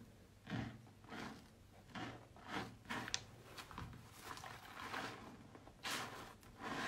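Wet squelching of a water-soaked, mushy soap bar being squeezed and kneaded between wet hands in foamy water. The squishes come unevenly, about one or two a second, with one sharp click about three seconds in.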